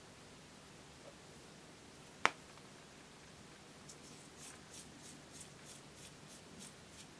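One sharp plastic click about two seconds in, as a lip balm cap comes off, then a run of about ten soft clicks, roughly three a second, as the twist base of a Lip Smacker lip balm tube is turned to wind the stick up.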